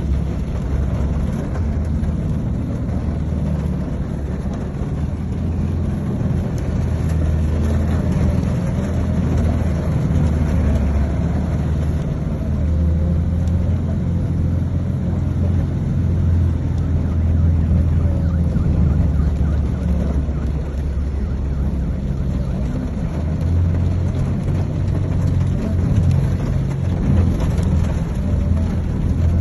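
Motor vehicle running with a steady low rumble, its level rising and falling a little.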